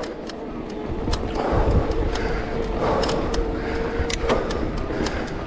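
Mountain bike rolling fast on a dirt singletrack: a steady rumble of tyres and wind on the microphone, with the bike's frame and chain rattling in many sharp clicks.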